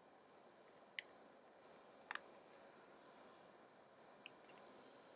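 Mechanical key switches clicking as they are snapped into a keyboard keyplate: one sharp click about a second in, a quick pair around two seconds, and two more near the end, over near silence.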